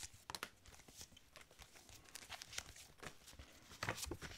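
Paper sticker slaps rustling and flicking as a stack of them is leafed through by hand, a series of short faint crinkles with a louder rustle near the end.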